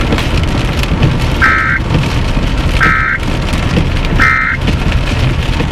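Storm wind rumbling on the microphone with rain, and three short electronic beeps about a second and a half apart.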